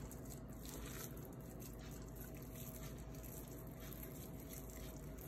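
Faint, soft squishing of raw ground meat being pressed and rolled into meatballs by hand, over a steady low background hum.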